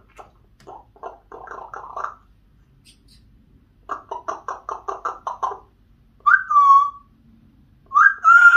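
Yellow-naped Amazon parrot vocalizing: two runs of short, rapid notes at about four a second, then two louder whistled calls near the end, the first falling in pitch and the second rising and then held.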